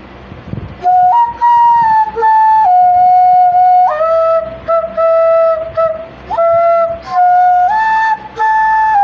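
Background music: a solo flute playing a slow melody of long held notes that step up and down, coming in about a second in over a faint hiss.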